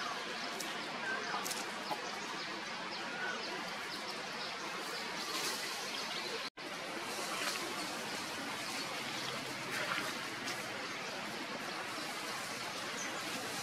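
Steady outdoor background hiss with a few faint bird chirps; the sound drops out for an instant about six and a half seconds in.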